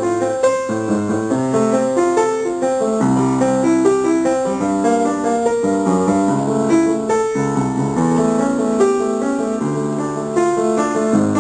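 Solo piano playing a busy, unbroken stream of notes across the middle and low registers.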